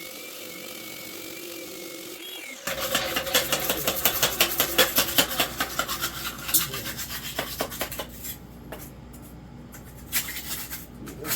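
Wet concrete saw working a concrete floor slab: a steady whine, then loud rough grinding and scraping from about three seconds in that eases off after about eight seconds.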